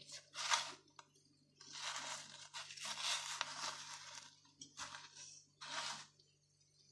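Crushed corn-snack crumbs crunching and rustling as a batter-coated sausage on a skewer is rolled and pressed into them by hand in a plastic bowl. The sound comes in bursts, with the longest stretch from about a second and a half to four and a half seconds in, then two short bursts near the end.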